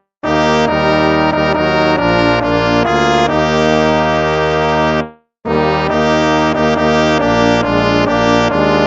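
Instrumental hymn of praise played in sustained brass-toned chords. The phrase ends about five seconds in, and after a brief pause the next phrase begins.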